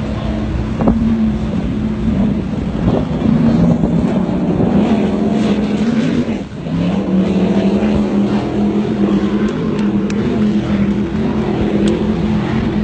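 Powerboat engine running steadily at speed. Its note dips briefly about six and a half seconds in, then carries on a little lower.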